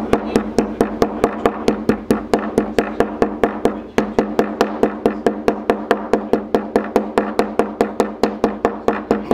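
Stainless steel chokka hammer striking a strip of chokka squid on a plastic cutting board with its thick serrated face, a fast even tapping of about five knocks a second. The blows break up the tough skin side of the squid and riddle it with holes to make it supple as bait.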